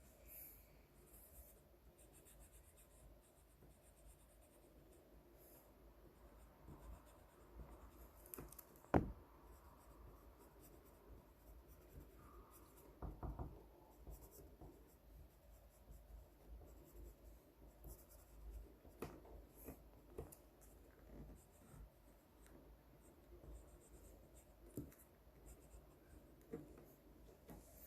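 Faint scratching of drawing strokes on paper, with small ticks throughout. A single sharp tap about nine seconds in and a brief cluster of soft knocks a few seconds later.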